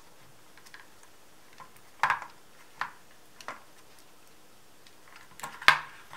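Plastic clicks and knocks as a battery pack is pressed and fitted into a Beast King RC car's battery tray: a few single clicks spaced out, then a cluster near the end with the loudest knock.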